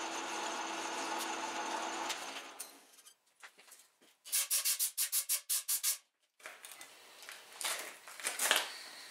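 Metal lathe running with a file rubbing against the spinning part; the lathe winds down after about two seconds. Then comes a fast run of sharp scraping strokes, and a few more scrapes near the end.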